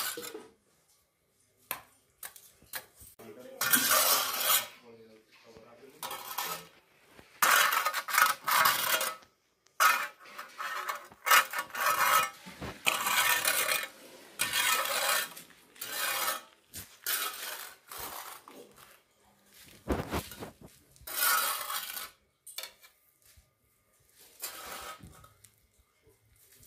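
A small metal trowel scraping sand across a concrete floor in repeated, irregular strokes, each a short scrape with brief pauses between.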